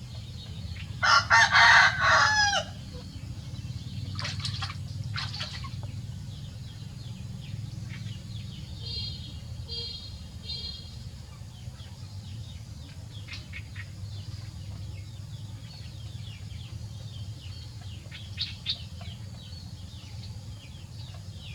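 A rooster crows once, loudly, about a second in, its call falling in pitch at the end. Fainter short bird calls and chirps follow over a steady low hum.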